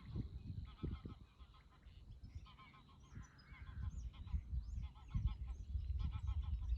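A flock of waterfowl calling: runs of short calls in several bursts over a low rumble.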